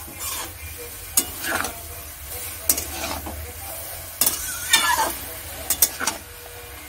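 A spatula stirring and scraping chopped wet water spinach around a metal kadai in irregular strokes, over a light sizzle from the greens steaming in the hot pan.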